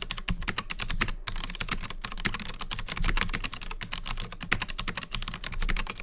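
Fast typing on a DAS Keyboard Professional for Mac with Cherry MX Brown tactile mechanical switches: a rapid, unbroken run of keystroke clicks.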